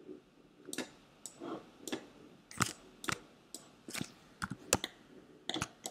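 Computer mouse and keyboard clicks while working in animation software: about a dozen short, sharp clicks at an irregular pace, some in quick pairs.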